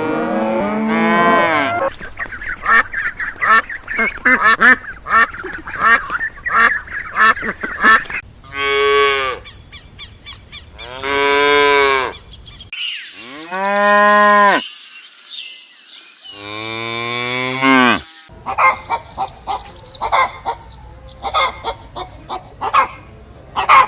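Farm animal calls in a string of cut-together clips: geese honking in quick repeated series, and several long, drawn-out moos from cattle.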